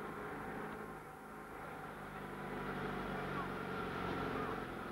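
A car engine running steadily, a little louder in the second half.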